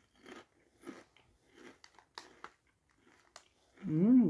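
Mouth-close chewing of ridged potato chips: short crisp crunches every half second or so. Near the end comes a louder hummed "mmm" that rises and falls in pitch.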